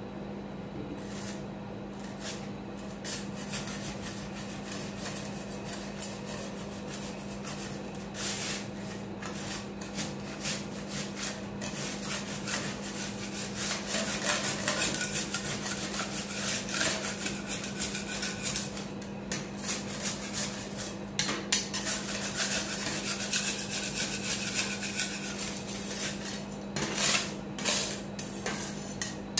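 Two metal spatulas scraping and chopping frozen Monster Energy White on the steel cold plate of a rolled-ice-cream machine: rasping scrapes and light metal taps, sparse at first and growing busier from about eight seconds in. A steady low hum runs underneath.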